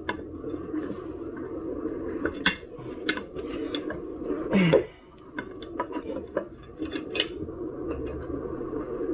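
Tyre levers and a flat screwdriver clicking, knocking and scraping against the wheel rim while the tyre is worked over it, with scattered sharp knocks, the loudest about two and a half and four and a half seconds in.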